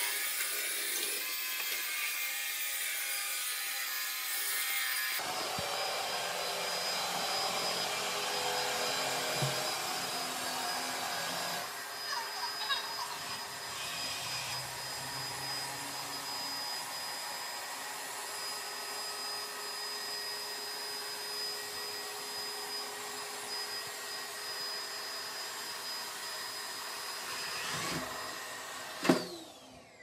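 Yeedi Cube robot vacuum running as it drives over a tile floor: a steady motor whine with brush and wheel noise. Near the end, two sharp knocks as it docks into its station, and then it goes quiet.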